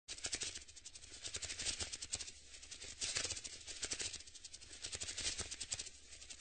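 Dense, rapid rattling that swells and eases about once a second.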